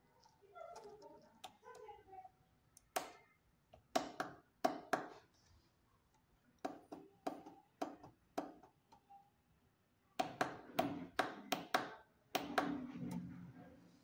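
Small tactile push-button switches clicking under a tool tip, in irregular runs of sharp clicks starting about three seconds in, with a close cluster near the end. Each press steps the MOSFET regulator's output voltage up or down.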